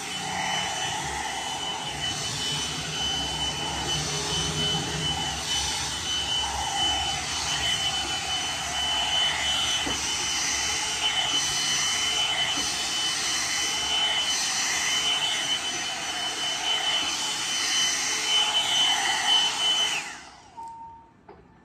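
Electric hot-air round brush (blow-dryer brush) running: its fan blows steadily with a constant high-pitched whine, the whoosh rising and falling a little as the brush is worked through the hair. It cuts out near the end and dies away over about a second.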